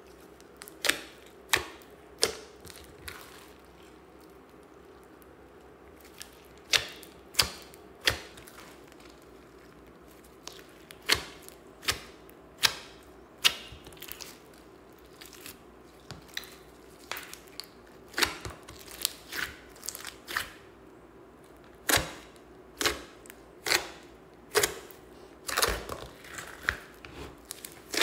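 Hands squeezing and pressing a large mass of mixed slime, making sharp wet pops and clicks at irregular intervals, a few at first and coming more often in the second half.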